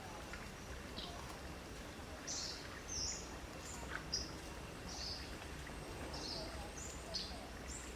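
Short, high bird chirps repeating roughly once a second over a steady low background noise.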